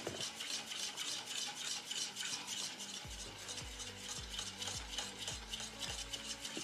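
Metal utensil stirring melted fats and oils in a stainless steel bowl, scraping against the metal in a quick, even rhythm. This is oils for handmade soap being stirred while they are brought to mixing temperature. Soft low bumps join the scraping from about halfway in.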